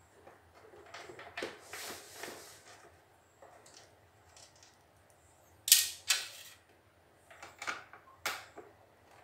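Screwdriver working on the plastic housing of a CNY E900 portable embroidery machine as it is taken apart: scattered clicks and light scrapes, with two sharp, loud clicks about halfway through and a few more near the end.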